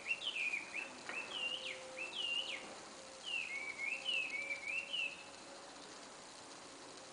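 A wild bird calling in a quick run of rising-and-falling whistled notes, in two phrases over about five seconds, then stopping.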